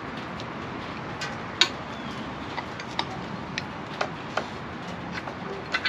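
Brake parts being fitted by hand onto a rear axle housing: a handful of irregular sharp clicks and taps over a steady background hiss.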